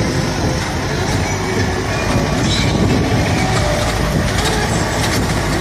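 Steady rumbling road and engine noise of a moving vehicle, heard from on board as it drives along.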